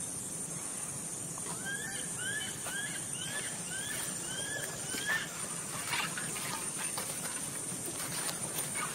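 An animal giving a run of about eight short, arched chirping calls, roughly two a second, which stop about five seconds in; a few faint clicks follow, over a steady high whine.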